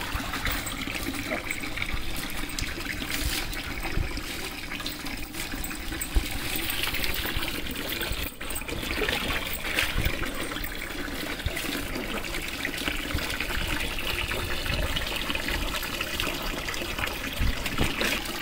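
Water trickling and splashing steadily.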